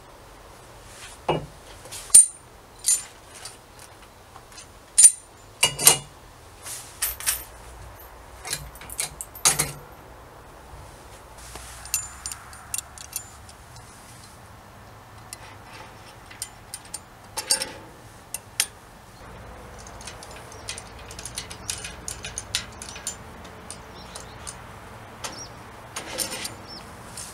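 Galvanized steel sliding-gate brackets being handled and fitted: a series of sharp metal clinks and knocks, loudest in the first several seconds, then lighter, scattered taps.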